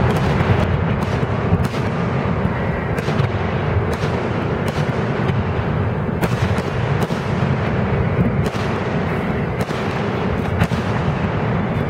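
Aerial fireworks shells bursting in rapid succession: many sharp bangs and cracks over a continuous low rumble of booms.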